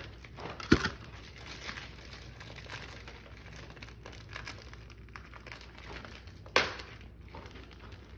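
Crinkling and rustling as a nylon outlet wall plate is handled, with two short, sharp clacks, one about a second in and one near the end.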